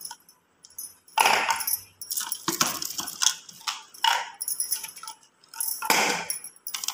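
Small plastic storage containers, wrapped in plastic film, being handled inside a plastic bucket: several short knocks and crinkly rustles, with quiet gaps between them.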